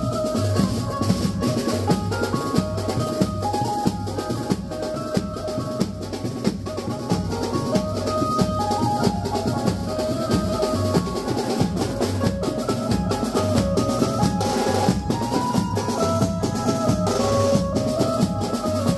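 Live banjo-party band music: an amplified bulbul tarang (Indian banjo) playing a stepping melody over steady, dense drumming from strapped-on drums.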